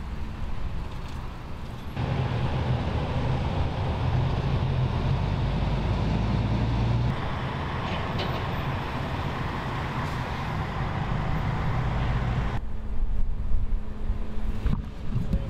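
An engine running steadily, with a low hum under a noisy background. The background changes abruptly about two seconds in, again around seven seconds, and once more near the end.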